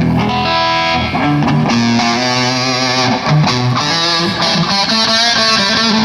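Rock music with a distorted electric guitar playing a melodic lead line over a band, with no singing.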